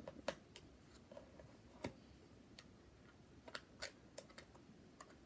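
Near silence broken by several faint, sharp clicks and taps spaced irregularly, the sort made by small objects being handled.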